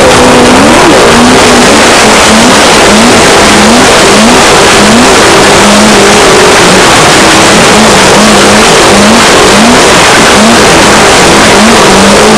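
Off-road race vehicle's engine heard from an onboard camera, its pitch climbing in short, quick rises again and again as the throttle is worked, under loud, distorting wind and road noise.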